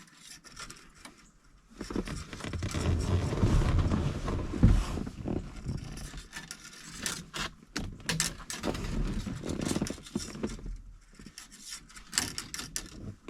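Hands handling new steel heater control cables while lining up their ends to feed them into the tubes in a VW Beetle's centre tunnel: rubbing and scraping for the first few seconds, then scattered light clicks and taps.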